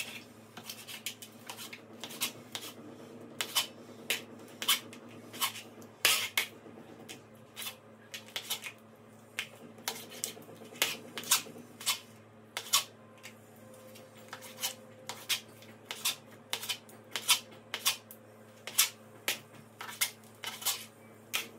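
Knife chopping cow tripe into pieces on a plastic cutting board: a run of sharp taps as the blade hits the board, roughly two a second in an uneven rhythm.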